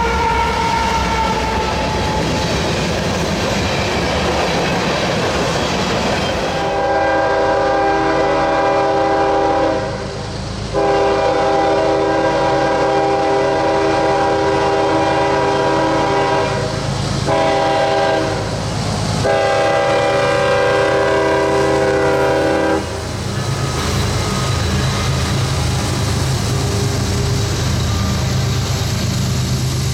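Diesel freight locomotive's multi-chime air horn sounding the grade-crossing signal, two long blasts, a short one and a long one, over the rumble and wheel clatter of the moving train.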